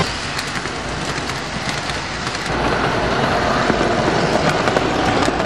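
O-gauge model train running on tubular three-rail tinplate track: a steady metallic rumble with many small clicks from the wheels, growing louder about halfway through.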